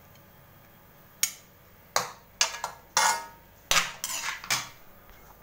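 Metal spoon knocking and scraping against a metal wok while vegetables are scooped out, about eight sharp clanks, some drawn out into short scrapes, starting about a second in.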